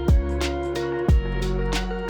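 Background music: sustained notes over a heavy bass, with two drum hits about a second apart.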